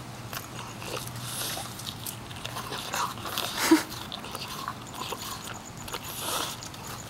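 French bulldog biting and chewing an apple core held in a hand: irregular wet crunches and chews, the loudest bite a little past halfway.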